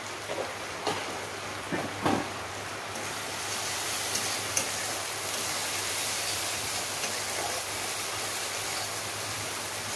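Steady sizzling hiss of food cooking in a metal kadai on a gas burner, growing brighter about three seconds in as it is stirred. A few light knocks of utensils in the first two seconds.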